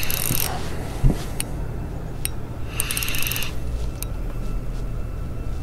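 Spinning reel cranked in short spurts against a hooked fish, its gears whirring briefly at the start and again about three seconds in. A single low thump comes about a second in.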